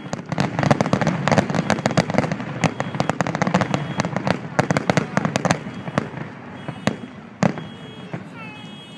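Fireworks finale: aerial shells going off in a dense barrage of rapid bangs and crackling, thinning out after about five seconds to a few scattered single bangs.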